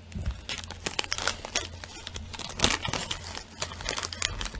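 Plastic candy wrapper crinkling as the cut-open bag is handled and pulled apart, in irregular crackles, loudest a little under three seconds in.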